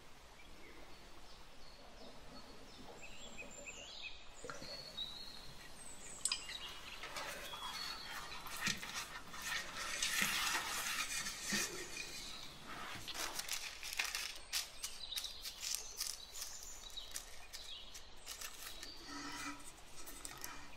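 Pastry brush spreading grease around the inside of a metal springform cake tin: soft brushing strokes, loudest about ten seconds in, with light clicks and taps of the tin.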